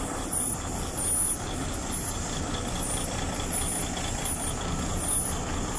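A steady low mechanical rumble like an idling engine, with a faint high chirp repeating about twice a second.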